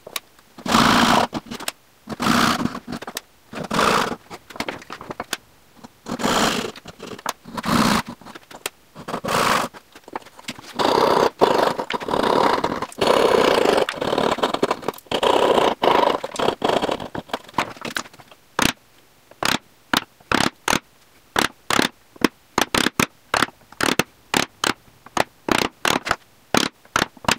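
Japanese pull saw cutting dovetail pins against a magnetic saw guide: a series of separate rasping strokes, each under a second long. About 18 seconds in, the sound changes to a quick run of short, sharp knocks, about two a second.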